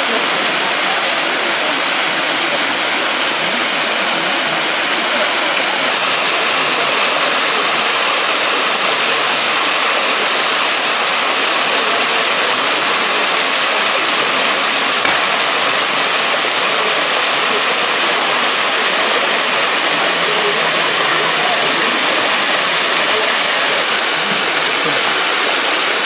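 Small waterfall pouring off a rock overhang into a pool below: a steady rush of falling and splashing water.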